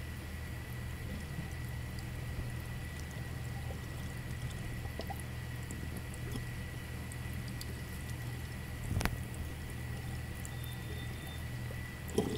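Water trickling and dripping in a misted turtle enclosure over a steady low hum from the tank equipment, with a faint steady high tone. A sharp click about nine seconds in and another near the end.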